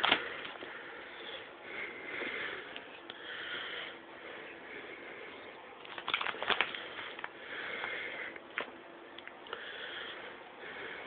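Plastic trade-binder pages being turned by hand, the pocket sleeves crinkling and clacking at the start and again about six seconds in, with soft sniffing breaths in between.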